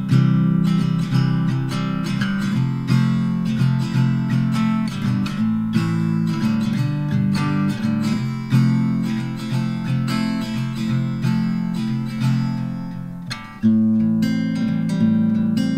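Background music: strummed and plucked acoustic guitar with a steady rhythm, dipping briefly near the end before carrying on.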